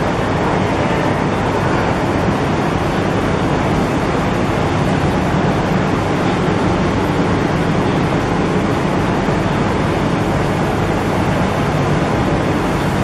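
Roller heat transfer machine running as it feeds many strips of lanyard webbing, a loud, steady, even machine noise with no distinct rhythm or tone.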